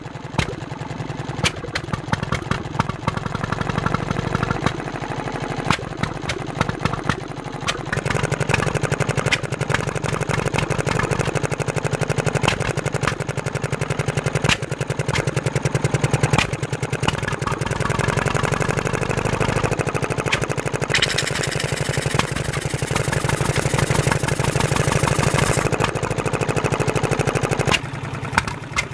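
1937 Petter M type single-cylinder two-stroke petrol stationary engine running steadily, a rapid even beat of firing strokes. A hiss comes in over it for several seconds in the second half.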